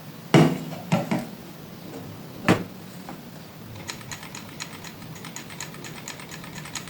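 A few sharp knocks from handling a sewing machine, then from about four seconds in a fast, even clicking, about five clicks a second, as the machine's stitch mechanism begins to turn.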